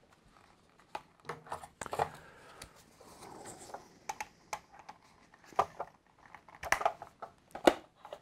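Hard plastic parts of a Hasbro AT-ST toy vehicle clicking and knocking as they are handled and pressed together, with light rustling between. Scattered light clicks give way to a few louder clicks in the last few seconds.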